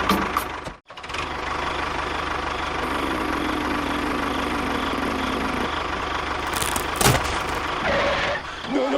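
Engine running steadily with a fast low pulse, cut off briefly just under a second in, with a sharp knock about seven seconds in.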